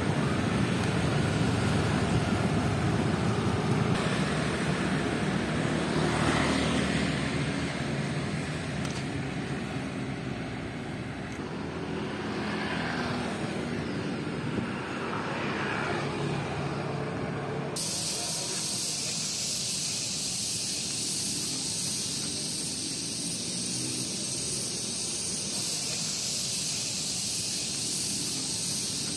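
City street traffic noise heard from a moving bicycle, a rough rumbling haze. About 18 s in it cuts abruptly to steadier, quieter traffic ambience with a constant high hiss.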